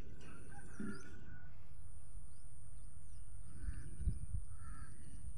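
Outdoor ambience: a low steady rumble with faint, scattered bird chirps and a thin, steady high whine.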